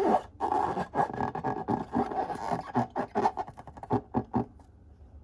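Slime squished and stretched by hand, giving quick wet squelches and sticky crackling clicks that thin out and fade near the end.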